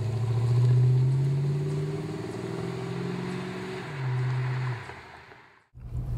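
1988 Ford Mustang GT's 5.0-litre HO V8 running as the car drives off, its exhaust note swelling in the first second and then easing. It is louder again briefly about four seconds in, then falls away near the end.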